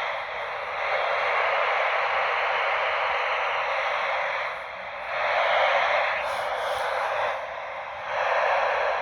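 Radio static: a steady band of hiss from a radio receiver with no program on it, swelling louder about halfway through and again near the end.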